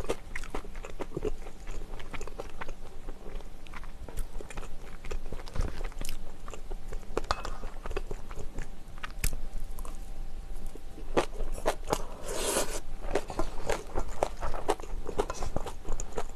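Close-miked eating sounds: chewing and crunching a mouthful of bibimbap and kimchi, with many small wet clicks and the spoon tapping and scraping the stainless steel mixing bowl.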